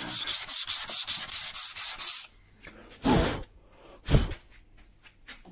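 Wooden plane mouth piece rubbed back and forth by hand on an abrasive sheet, a rasping hiss in quick even strokes, flattening its face; it stops after about two seconds. Then come two dull knocks, the second one louder and sharper.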